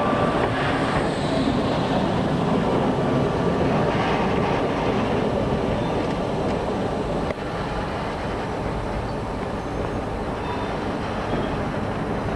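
Sydney W set electric suburban train running past on the track: a steady wheel-on-rail running noise, slightly quieter from about seven seconds in.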